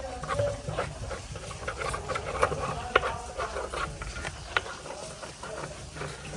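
Steady low machine rumble with scattered sharp clicks and knocks, a louder knock about three seconds in.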